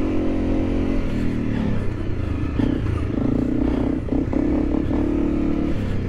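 Dual-sport motorcycle engine running under way, over a low rumble of road and wind noise. The engine note drops about a second in, then surges and breaks off several times as the throttle is opened and closed.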